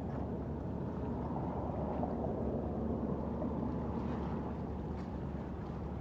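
Steady low rumble of distant traffic and airshow aircraft, swelling a little around the middle.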